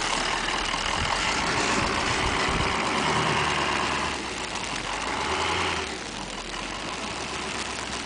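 Engine of snow-removal equipment running steadily, getting quieter in two steps about four and six seconds in.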